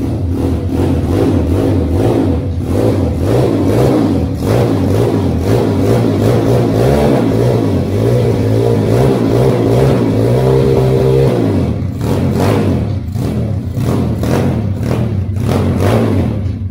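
Small pit bike engine running and being revved, rising in pitch briefly about ten seconds in and dropping off near the end.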